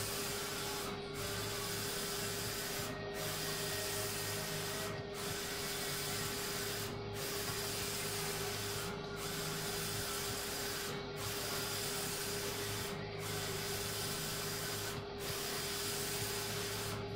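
Roland wide-format inkjet printer printing vinyl decals, its print head carriage sweeping back and forth with a steady whir and hum. The noise dips briefly about every two seconds.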